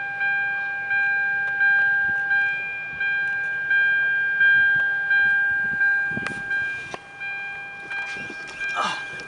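A car's door-open warning chime dinging over and over, about once every 0.7 seconds, growing softer in the last couple of seconds. There is a sharp click about six seconds in.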